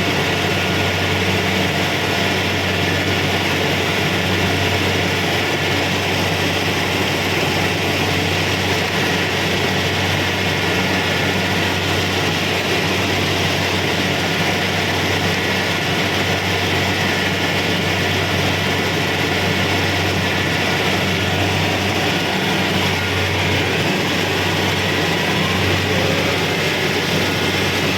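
Kubota DC-70 Pro combine harvester running with a steady, unbroken engine drone.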